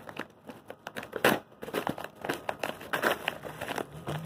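Irregular crinkling and rustling handling noise, with a sharper crackle about a second in.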